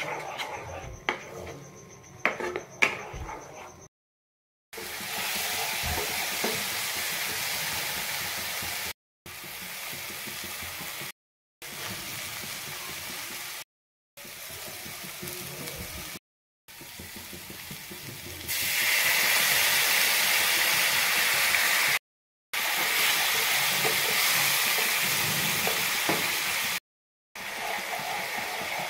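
Spiced masala sizzling and frying in a nonstick pan while a spatula stirs it, with a few sharp knocks of the spatula on the pan in the first seconds. The sizzle cuts out briefly several times and is loudest a little past the middle.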